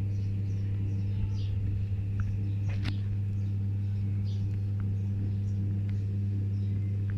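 A steady low electrical hum, with faint, brief high chirps scattered over it.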